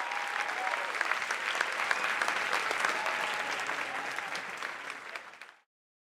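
Audience applauding, a dense steady clapping that fades out about five and a half seconds in.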